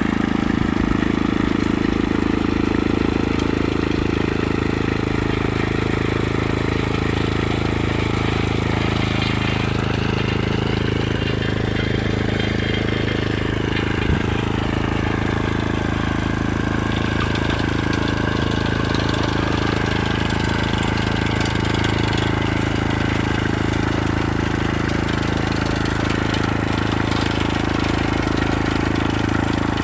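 A vehicle engine running steadily, with a gentle dip and rise in pitch about a third of the way through.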